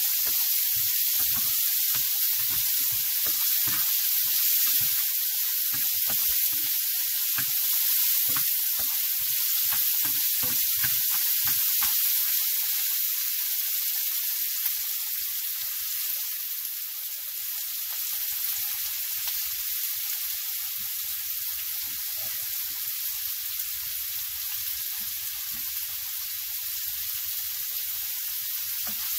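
Chopped onions frying in vegetable oil in a non-stick pan, a steady sizzle. For the first half a spatula stirs and knocks through them in short strokes; later the sizzle goes on over a low steady hum.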